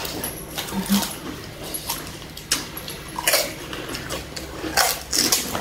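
Pani puri being eaten: crisp puri shells cracked open with the fingers, along with chewing and slurping, heard as a string of short, sharp, irregular crackles and wet mouth noises.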